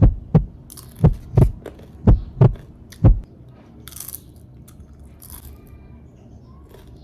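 Heartbeat sound effect: loud, deep double thumps in a lub-dub pattern about once a second, stopping after about three seconds. Two short hissing rustles follow.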